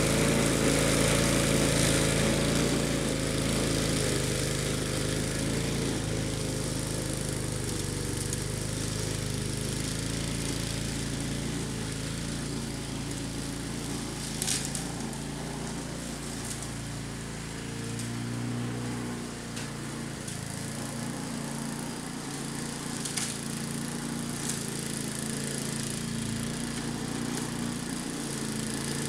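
Gasoline walk-behind rotary lawn mower running steadily while cutting tall ragweed, growing fainter as it moves away. A couple of brief sharp ticks sound through it.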